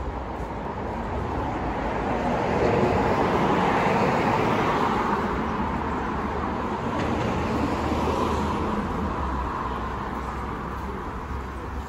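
Road traffic passing on a city street: the tyre and engine noise of a passing car swells to its loudest about three to five seconds in, then fades, with a smaller swell from another vehicle a few seconds later.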